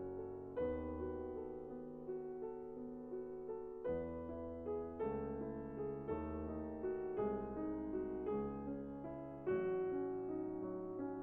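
Background music: solo piano, chords and melody notes struck every second or so and left to ring.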